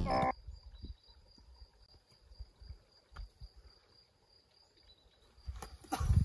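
Music cuts off just after the start, leaving a quiet outdoor background with a faint steady high-pitched insect trill and scattered low thumps; a few louder low thumps and rustling come near the end.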